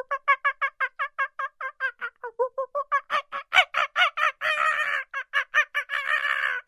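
An animal giving a fast series of short, pitched calls, about six a second, with two brief stretches near the middle and end where the calls run together into a longer, denser call.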